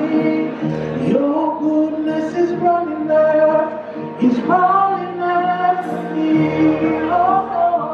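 A song playing, with a singer's voice holding long notes that glide from one pitch to the next over the accompaniment.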